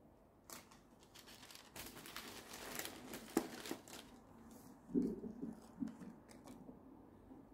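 Tissue paper rustling and crinkling as a sneaker is lifted out of its shoebox. A few soft thumps follow about five seconds in.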